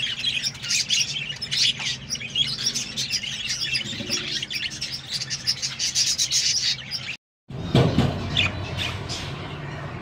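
A crowd of budgerigars chirping and chattering together in a dense, continuous twitter. The sound drops out for a moment about seven seconds in, then the chirping carries on.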